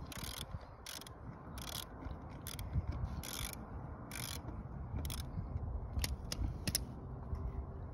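Hand socket ratchet clicking in a string of short, irregularly spaced bursts as it turns a lug nut on an ATV wheel to take the tire off, stopping about seven seconds in.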